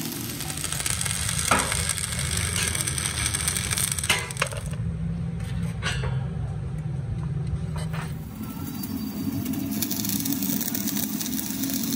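Stick (arc) welding on steel plate: the arc crackles and sizzles steadily over a steady low hum, with a few sharp clicks. The crackle stops for about three seconds midway as the arc is broken, then starts again.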